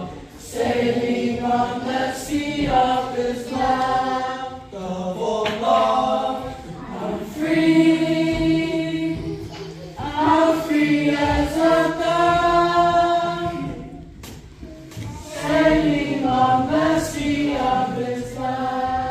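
A youth choir of children and teenagers singing a gospel song together, in phrases of held notes with short breaks between them.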